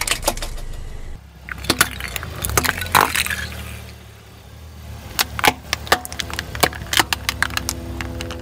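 Hard plastic toys cracking and snapping under a car tyre: a run of sharp cracks and clicks, thickest in the last few seconds, over a low steady rumble.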